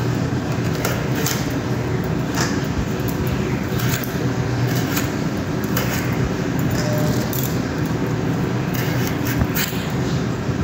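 Peeled potatoes being cut into pieces on a boti, a fixed curved blade: irregular crisp cutting clicks, with rustling of the plastic sheet underneath, over a steady background hum.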